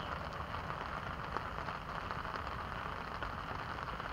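Steady rain falling on a pond's surface: an even hiss peppered with many small drop ticks.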